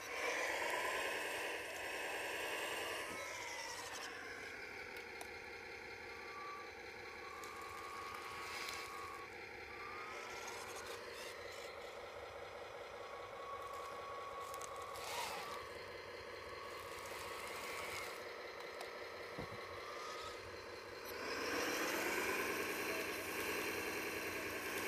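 1/14-scale radio-controlled CAT excavator working its boom, arm and bucket: a whining motor sound that rises and falls in pitch. It is louder in the first few seconds and again near the end, with a quieter steady hum between.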